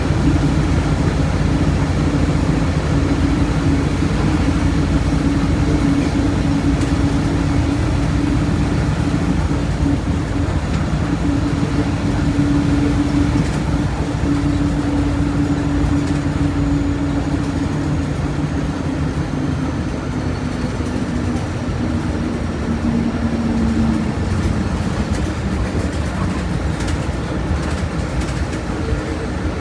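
Diesel engine of a Volkswagen Volksbus 17.230 OD bus running steadily under way, a continuous drone with road and rolling noise; its pitch drops slightly in the last few seconds as the engine slows.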